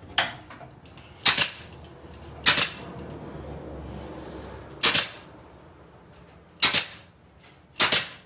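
Kamsin K-SC7C 15-gauge pneumatic C-ring gun firing six times, a sharp snap at each shot, one to two seconds apart, with a quick double shot near the end. Each shot crimps a C-ring shut, fastening pieces of chicken wire together.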